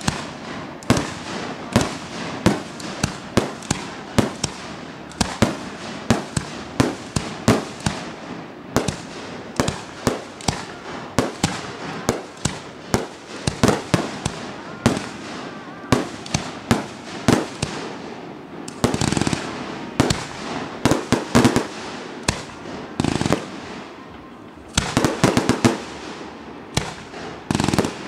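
Fireworks display: aerial shells launching and bursting in quick succession, about one to two bangs a second with crackling between. Denser volleys come about two-thirds of the way through and again near the end.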